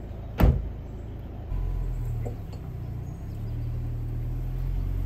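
A car door shuts with a single loud thump about half a second in. About a second later the SUV's engine starts and runs steadily at idle, low in pitch.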